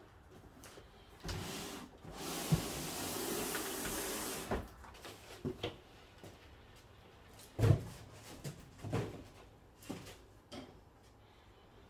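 Off-camera workshop handling noises: a steady hiss lasting about two and a half seconds, then a few scattered knocks, the loudest about eight seconds in.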